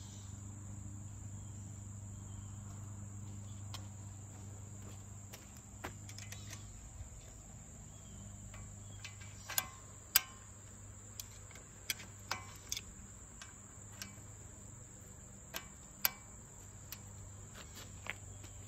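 Sharp metal clicks as the steel pins and ring clips holding a mini excavator grapple are handled and fitted, scattered through the second half with the loudest about ten seconds in. A steady high insect drone runs underneath.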